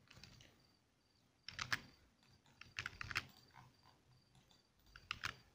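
Faint clicks and taps of a computer keyboard and mouse, in three short clusters: about a second and a half in, around three seconds in, and near the end.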